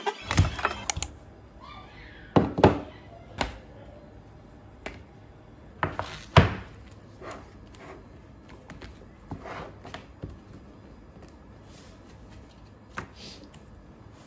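Hands handling a cardboard box and stacks of paper pads on a desk: a dozen or so irregular knocks and thuds, the loudest twice about four seconds apart, with light rustling of card and paper between them.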